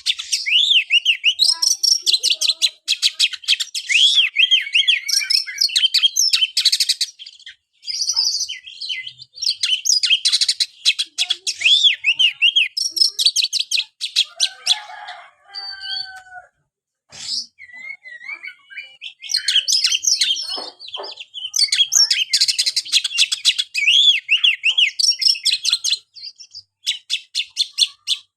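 Oriental magpie-robin (kacer) singing a loud, rapid, chattering song in stretches of several seconds, mixing quick repeated notes with swooping whistles, with short pauses between stretches.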